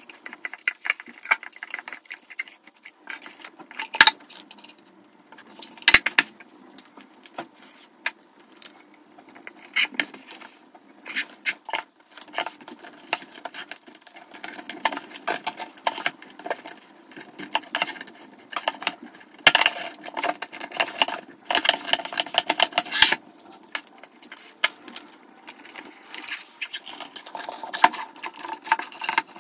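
Handling sounds of paper being water-stretched over a square art panel on a table: a wide flat brush sweeping over the damp paper, and hands rubbing and pressing it down. Several sharp knocks and clicks come through as the panel and tools are moved about.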